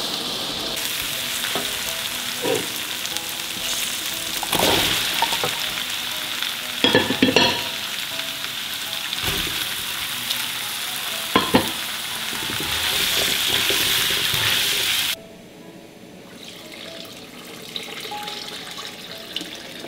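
Chopped vegetables sizzling in a hot stainless-steel wok as a metal spatula stirs them, with a few sharp scrapes and clinks of the spatula against the pan. About fifteen seconds in the sizzling cuts off suddenly, and water is then poured into the wok.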